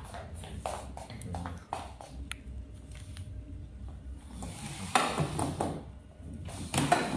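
Heeled boots clicking on a wooden floor as someone walks, in short irregular steps, with louder scuffs about five seconds in and near the end.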